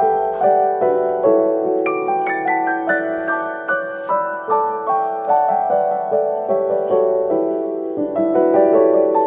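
Background music: a gentle piano melody, notes struck one after another at a steady pace.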